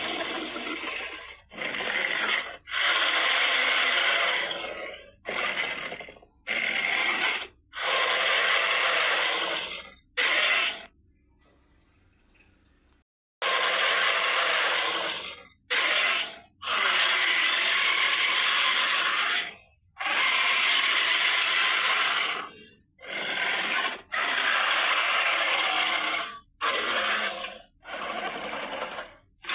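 Creature sound effect for a humanoid moray eel: a run of raspy, hissing bursts of uneven length, each broken off by a short gap, with a pause of about two seconds about eleven seconds in.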